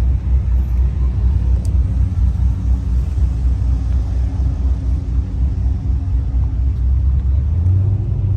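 Chevrolet Impala SS cruising at a steady speed: a continuous low rumble of engine and road noise.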